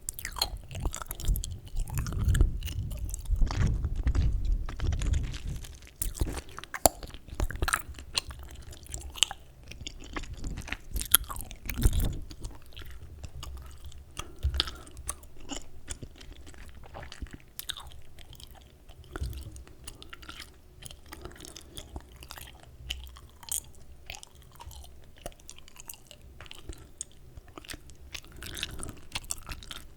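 Chewing gum close to the microphone for ASMR: irregular wet smacks and clicks of the mouth and gum, with heavier low chewing thumps in the first few seconds and again around twelve seconds in.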